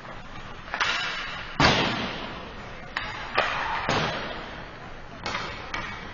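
Ice hockey play: a string of sharp knocks and slams from puck, sticks and boards, about seven in all, echoing through the arena. The loudest comes about a second and a half in.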